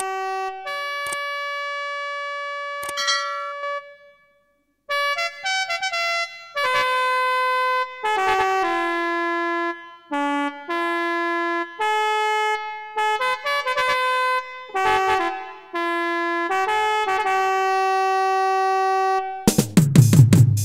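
Instrumental music intro: a lead melody of long held notes moving step by step, dropping out briefly about four seconds in. Near the end a beat and bass come in under it.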